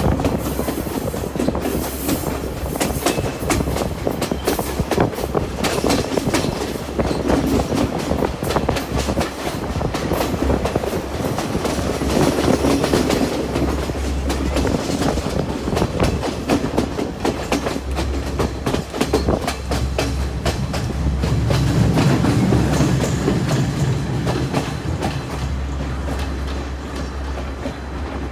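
Podi Menike passenger train running along the track: a steady low rumble with the wheels clacking over the rail joints.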